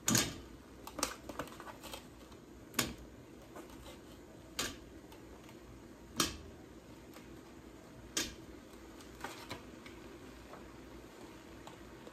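Pieces of corn on the cob set one by one into a stainless steel steamer basket in a pot, each landing with a sharp knock, about one every second or two.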